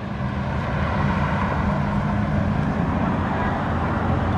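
Pickup truck driving past close by, its engine running with a steady low drone over road noise. The sound grows louder over the first second, then holds level.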